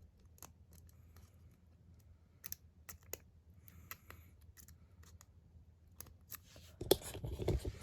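Faint, scattered clicks and scrapes of a lock pick and tension wrench working the pin stack of a brass Master Lock 140 padlock, with louder knocks and rustling near the end.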